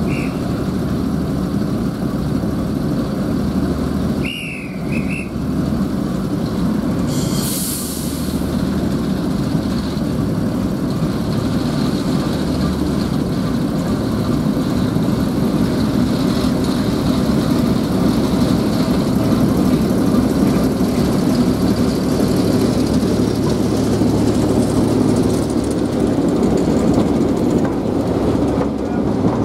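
Diesel shunter's English Electric six-cylinder engine running steadily as it hauls a coaching train slowly along the platform. There is a brief high squeal about four seconds in and a short hiss near eight seconds.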